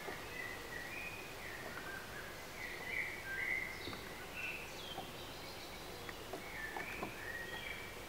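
Wild songbirds singing in short, varied whistled phrases, several in a row around the middle and again near the end, over a steady background hiss.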